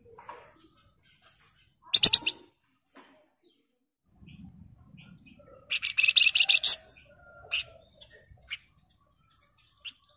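Flamboyan (wergan Jawa) songbird calling: two loud, rapid chattering trills, a short one about two seconds in and a longer one about six seconds in, with scattered short high chirps between them.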